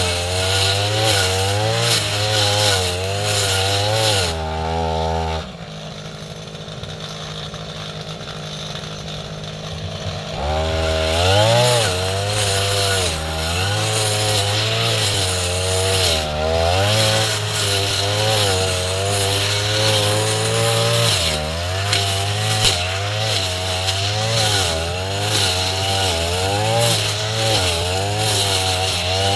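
Two-stroke brush cutter engine running at high revs, its pitch wavering up and down as it cuts through tall grass. About five seconds in the throttle drops to a steady idle for about five seconds, then it revs back up.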